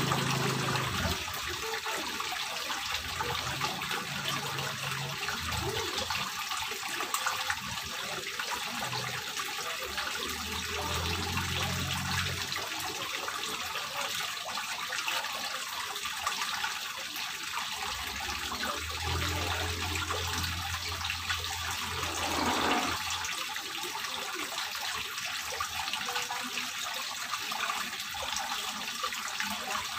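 Water from a stone wall fountain running down the wall and splashing into a small terrace pond, a steady trickling and splashing.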